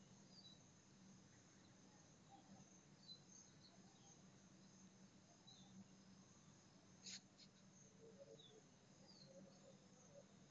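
Near silence: a faint steady background hum with a few faint, short bird chirps scattered through it, and one brief click about seven seconds in.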